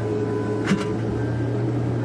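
Komatsu PC130F excavator's diesel engine running steadily under working load, heard from the operator's cab, with a single knock from the working machine about two-thirds of a second in.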